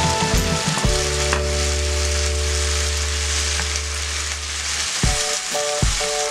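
Capcay vegetables and meatballs sizzling in a hot non-stick frying pan as a spatula stirs and tosses them, over background music.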